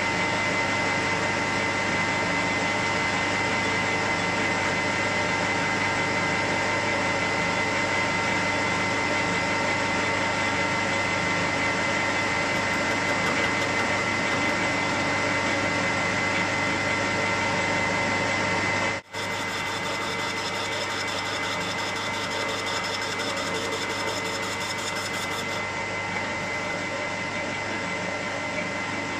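Metal lathe running steadily with a constant whine while the tool turns the outside diameter of a small cylinder end plate. It cuts out for an instant about two-thirds of the way through, then carries on a little quieter.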